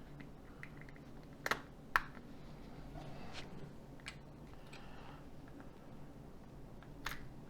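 A few sharp clicks and taps of small plastic phone parts being handled and pried during a hand disassembly of a mobile phone, over a low steady hum.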